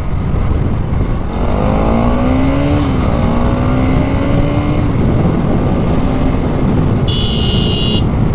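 Bajaj Pulsar NS200's single-cylinder engine under way. The revs rise, drop at a gear change about three seconds in, climb again and then hold steady, with wind rush on the helmet microphone. A high-pitched horn-like beep sounds for about a second near the end.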